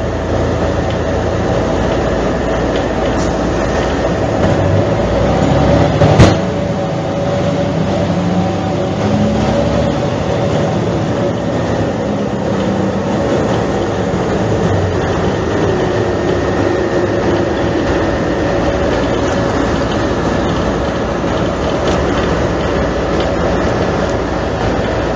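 Mercedes-Benz O345 Türk city bus under way: steady engine and running rumble, with the engine pitch rising and falling as it pulls away and changes speed. There is a sharp knock about six seconds in.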